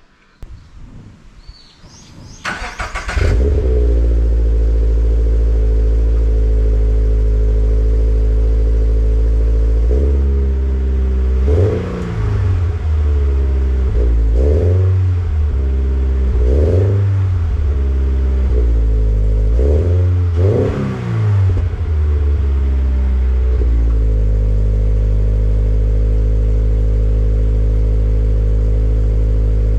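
Toyota GR86's 2.4-litre flat-four engine starting up about three seconds in with a short cranking burst, then idling steadily through its aftermarket-compared exhaust. Midway it is blipped in several quick revs that rise and fall, then settles back to a steady idle.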